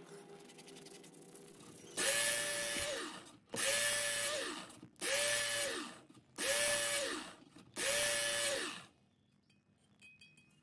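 Corded electric knife sharpener switched on in five short runs while a blade is ground. Each run holds a steady whine over a grinding hiss, then winds down with a falling pitch.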